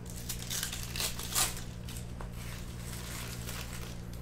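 Foil wrapper of a 2020 Bowman baseball card pack crinkling and tearing as it is pulled open by hand: a run of rustles, loudest about a second and a half in, then dying down.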